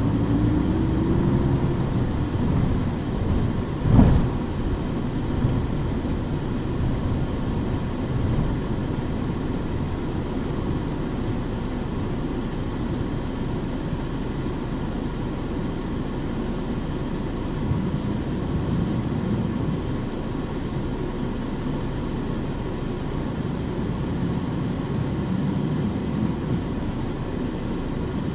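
Onboard running sound of a Nissan Diesel KC-UA460HSN city bus: its diesel engine and drivetrain run steadily. A whine rises in pitch over the first second or so, and a sharp thump comes about four seconds in.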